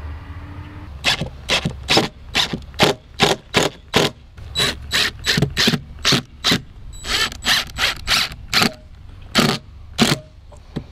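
Cordless drill-driver driving screws through a hose bib's mounting flange into the wall, in a rapid string of short bursts, two to four a second, starting about a second in.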